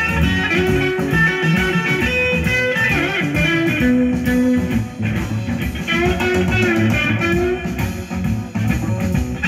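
Blues music with guitar and bass, played back through a Stromberg-Carlson 880 G vacuum-tube amplifier and Yamaha NS-1000 loudspeakers.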